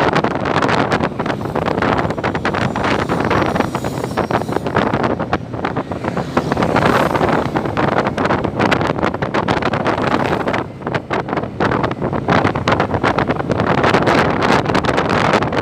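Loud wind buffeting the microphone in gusts while travelling, over the steady noise of a moving vehicle.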